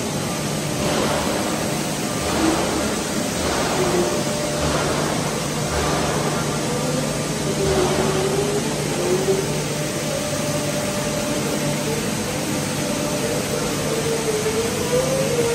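Large plastic film pelletizing line running: steady machine noise with a low hum and a higher whine that wavers in pitch.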